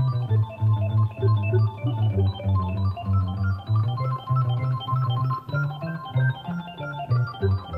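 Instrumental keyboard music with an organ-like sound: a bass line of short repeated notes under quicker, busier higher notes.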